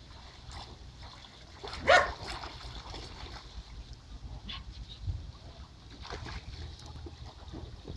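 Light water splashing as a snorkeler swims in a small inflatable pool, with wind rumbling on the microphone. About two seconds in comes one short, loud cry rising in pitch, the loudest sound here.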